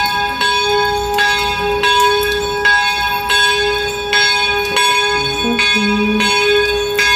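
Bell-like chiming: ringing tones struck about every 0.7 s over a steady held tone, in a tune-like pattern.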